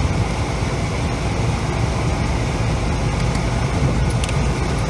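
Off-road vehicle driving over a soft sand track: a steady rumble of engine and tyre noise, with a few light rattles.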